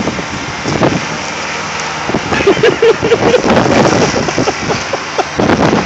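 Kubota riding lawn mower running hard as its deck grinds into a bush, with repeated cracks and snaps of branches over the engine.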